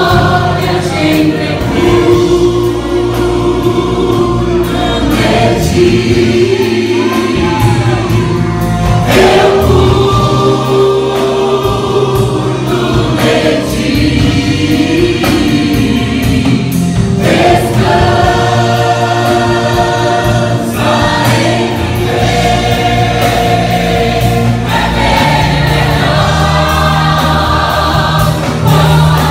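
Live gospel worship song sung in Portuguese by a praise team of several singers on microphones, over amplified instrumental backing with sustained low bass notes.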